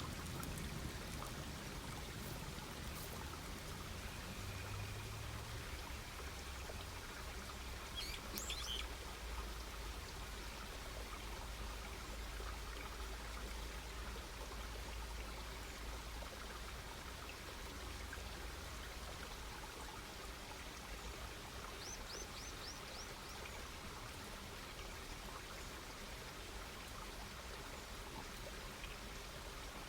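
Wood campfire crackling and hissing steadily, with many small pops. A bird calls once about eight seconds in, and a quick run of five high chirps comes about twenty-two seconds in.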